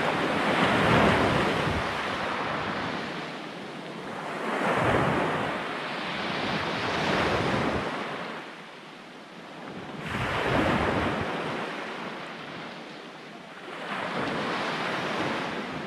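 Sea waves breaking and washing onto the shore, a rushing surge that swells and dies away every three to four seconds.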